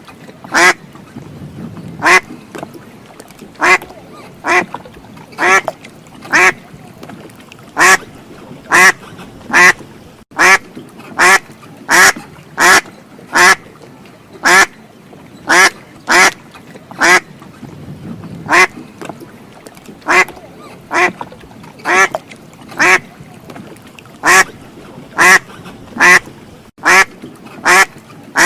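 Duck quacking over and over, short loud quacks at a steady pace of about one a second.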